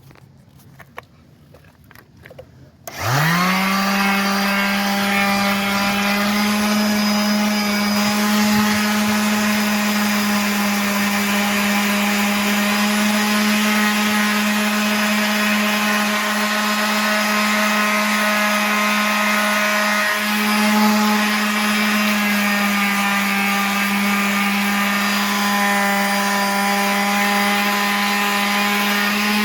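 Electric power tool motor switched on, spinning up quickly to a steady high whine and running at constant speed for about 26 seconds, then winding down as it is switched off. A few faint clicks of handling come before it starts.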